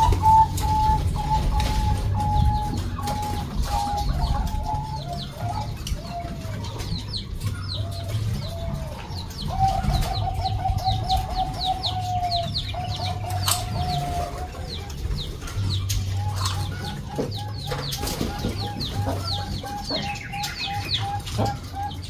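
Zebra doves cooing from their aviaries: repeated runs of short, quick coo notes, several birds overlapping. Small birds chirp high and fast alongside them through the middle of the stretch.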